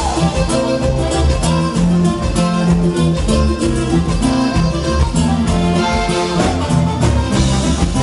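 Instrumental huapango music: plucked guitar, electric bass and drums playing a quick, steady dance rhythm with no singing.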